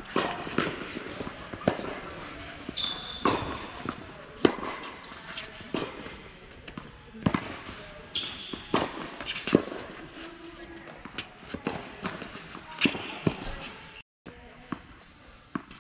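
Tennis ball being struck by racquets and bouncing on an indoor court, a sharp knock every second or so, with two short shoe squeaks on the court surface. Voices murmur in the background.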